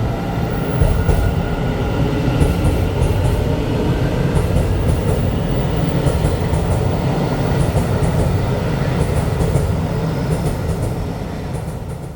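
Electric express train running through the station: a steady low rumble of wheels and motors, with wheels clicking over rail joints in evenly spaced pairs. It fades away near the end.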